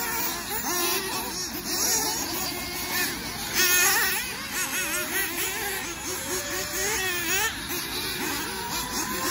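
Several nitro RC buggy engines racing at once, their high whines overlapping and rising and falling in pitch as the cars accelerate and brake around the track.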